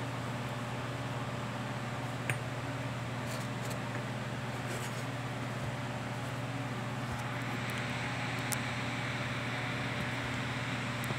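Steady low hum and hiss of room background noise, with a faint click a couple of seconds in and another near the end; the hiss turns brighter about seven seconds in.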